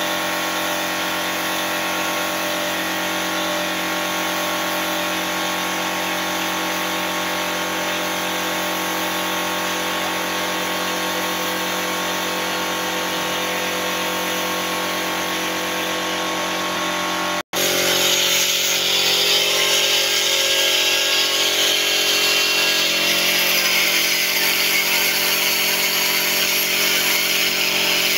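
Gravity-feed paint spray gun hissing with compressed air as it sprays paint, over a steady machine hum. The sound cuts out for an instant about 17 seconds in, and afterwards the hiss is louder.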